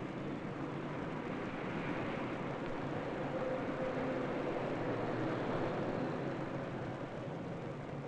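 A distant engine rumble with a faint hum in it, swelling over the middle seconds and fading again.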